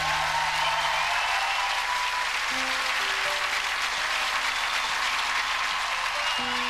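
Studio audience applause starts as a live acoustic guitar song ends, and holds steady with a few held notes of music underneath.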